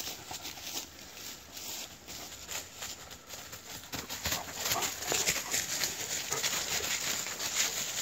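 Dry fallen leaves crunching and rustling under the paws of running Tosa dogs and a person's footsteps, an uneven run of crackles that grows busier and louder about halfway through.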